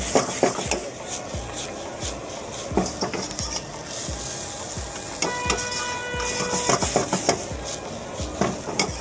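Vegetables stir-frying in a wok over a gas flame: steady sizzling, with a metal ladle scraping and knocking against the wok many times.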